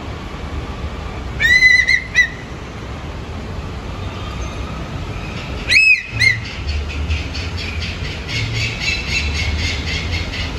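Animal calls: two loud, arched whistle-like calls, one about a second and a half in and one about six seconds in. After the second, a fast run of repeated high chirping notes continues, over a low steady background rumble.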